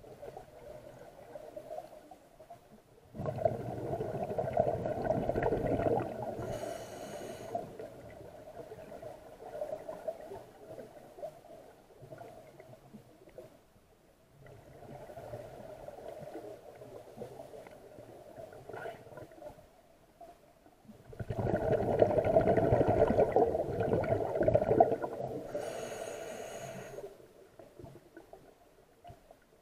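Scuba diver breathing underwater through a regulator: quieter hissing inhalations, and two long, loud rushes of exhaled bubbles, a few seconds in and again about twenty seconds in.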